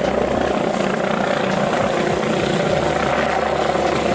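Helicopter sound effect: a steady, even noise of rotor and engine that does not change.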